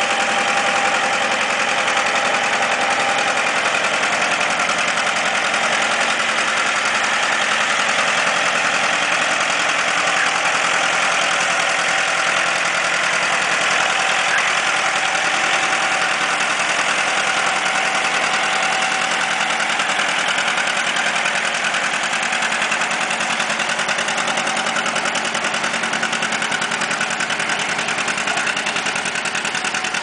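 Classic John Deere two-cylinder tractor engine running steadily under load while pulling a weight-transfer sled. A faint whine comes and goes, and the sound eases slightly in the last third.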